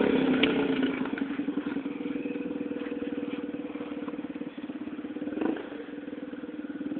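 Yamaha TTR-125 dirt bike's single-cylinder four-stroke engine running at a steady, low speed through an exhaust with the spark arrestor removed. It gets fainter over the first couple of seconds as the bike moves off, swells briefly about five and a half seconds in, and grows louder again near the end.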